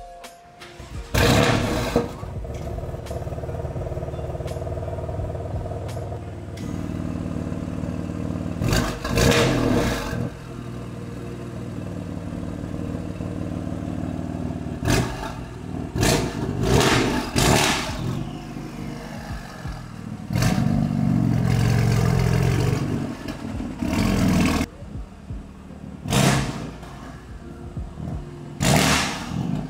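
BMW M2 Competition's twin-turbo straight-six running through an aftermarket OPF lightweight valved exhaust with HJS downpipe: idling, blipped to about seven short sharp revs, and held up at higher revs for about four seconds about two-thirds of the way through.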